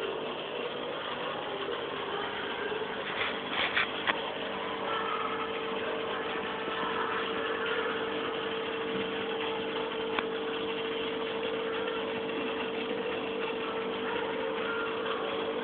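Aquarium pump running with a steady hum and a hiss of water and bubbles. A few short clicks come about three to four seconds in, and one more about ten seconds in.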